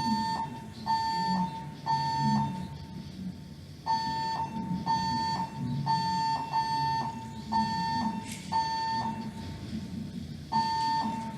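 Building fire alarm's voice-evacuation speakers sounding the evacuation tone: a high steady beep of about half a second, repeated in groups of several beeps with a pause between groups, the temporal-three evacuation pattern.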